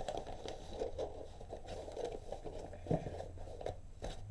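Hands handling a boxed computer component and its plastic packaging: a run of small rustles, scrapes and clicks as a part is pushed in, with one sharper knock about three seconds in.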